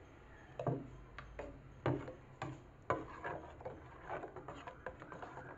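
Metal spoon stirring juice in a stainless-steel pot, scraping and clinking against the pot's sides in irregular strokes that start about half a second in.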